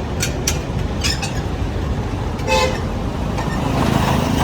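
Royal Enfield Bullet motorcycle running on the road in traffic, a steady low rumble, with a short vehicle horn toot about two and a half seconds in.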